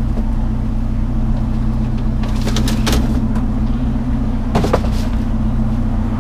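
A vehicle engine running steadily with a low hum, with a few sharp knocks and clatters about two and a half seconds in and again near four and a half seconds.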